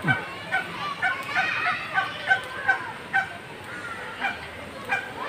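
A bird giving short, repeated calls, about two to three a second, with a brief pause about three and a half seconds in.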